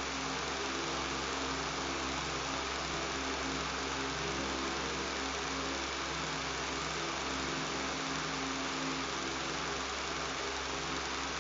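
Electric fan running steadily: an even hiss over a low buzzing hum, unchanging throughout.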